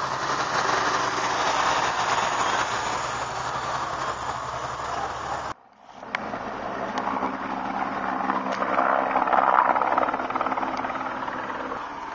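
A steady engine-like mechanical running with a low hum, cut off for a moment about five and a half seconds in, then coming back and swelling louder before easing.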